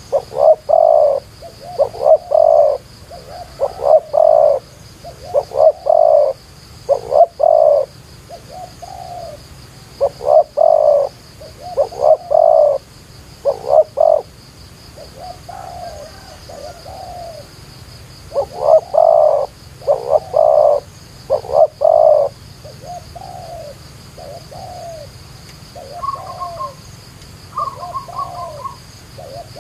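Spotted doves cooing: bouts of deep, repeated coo phrases with short pauses between them. A steady high insect buzz runs underneath, and a few shorter, higher notes come in near the end.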